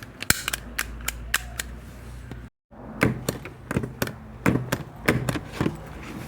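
Stapler being pressed again and again: a quick run of sharp metallic clicks and snaps, broken by a brief total silence about two and a half seconds in. After the gap the presses land with a heavier thump.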